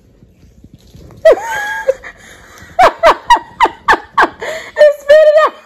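Toddler laughing: a drawn-out high vocal sound about a second in, then a quick run of short giggles, about three a second, ending in a longer held squeal.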